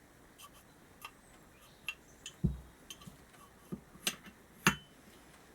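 Irregular light clicks and clinks of small carburettor parts being handled and fitted by hand during reassembly, with a dull knock about two and a half seconds in and the sharpest click near the end.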